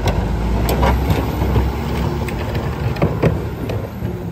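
Peterbilt garbage truck's engine running steadily as the truck pulls forward, with a few sharp knocks and rattles.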